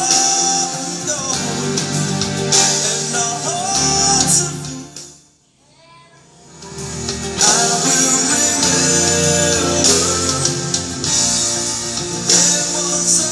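A song with singing and guitar playing through a Sansui A-5 integrated amplifier and a pair of speakers while the amplifier is tested. About five seconds in the music fades almost to nothing, as a hand works the amplifier's front-panel knob, and a second or so later it comes back up to full level.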